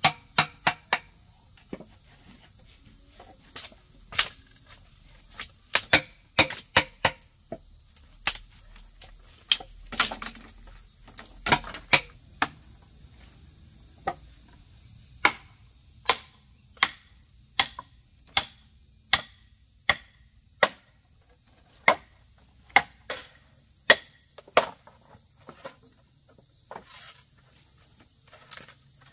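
Sharp knocks, struck irregularly about one or two times a second, over a steady high-pitched drone of insects.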